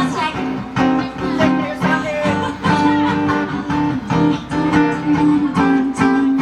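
Guitar-led music: a strummed guitar with sustained notes over a steady beat of about two strokes a second.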